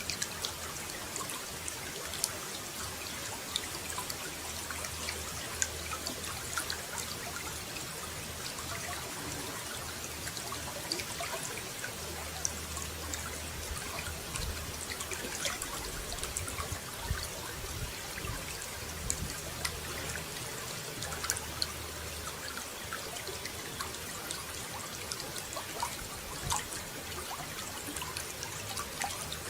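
Water running and trickling steadily, with many small splashes and drips.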